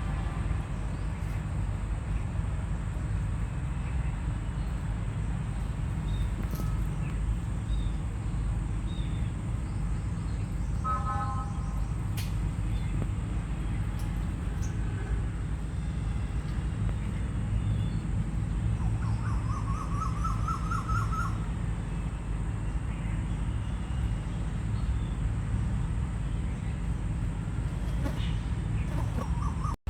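Steady low rumble of background noise with a few faint, short bird calls over it, one of them a quick run of rising notes near the middle.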